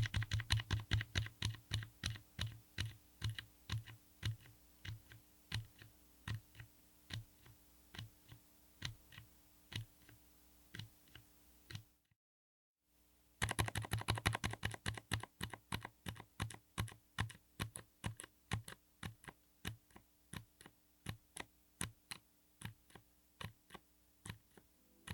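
Mechanical keyboard with Jerrzi Honey Bean silent linear switches being typed on in two runs, with a brief pause about twelve seconds in. The keystrokes are soft and muffled, the dampened bottom-out of silent switches, and they come quickly at first, then more sparsely.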